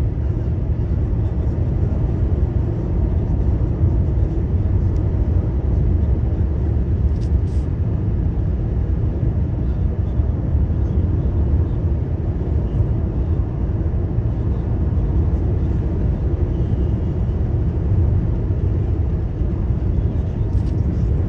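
Steady rumble of a car driving along, engine and tyre road noise at an even level throughout.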